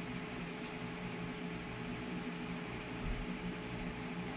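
Steady mechanical hum of a running household appliance, with several low steady tones under an even hiss. A soft low thump about three seconds in.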